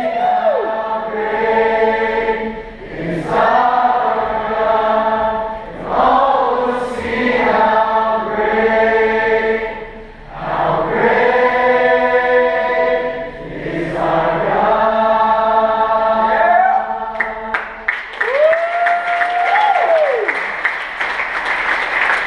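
A large congregation singing a worship song together in a big hall, in sung phrases of a couple of seconds each. Near the end the singing stops and clapping and cheering start, with a whoop.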